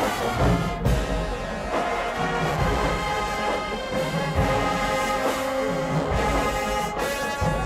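HBCU marching band playing: the brass section carries the tune over the drumline's low drum beats.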